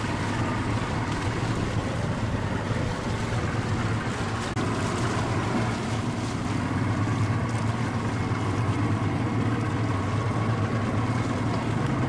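SHERP amphibious ATV's diesel engine running steadily as it pulls a towed load to shore.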